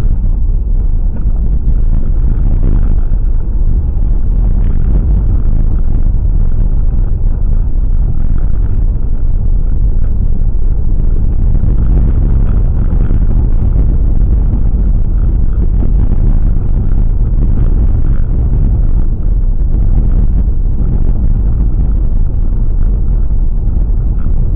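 Steady, loud low rumble of a car driving: road and engine noise.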